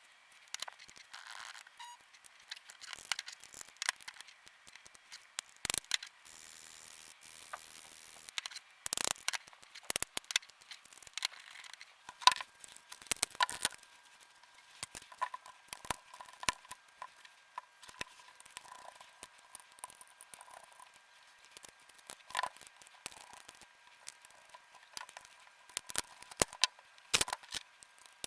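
Irregular small clicks, taps and scrapes of hands working on a DualSense game controller during repair, with a few sharper knocks and a faint steady high hum underneath.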